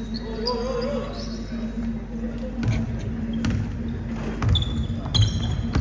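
Basketball bouncing on a hardwood gym court as it is dribbled, about four bounces roughly a second apart in the second half, with short high shoe squeaks and a steady hum in the hall.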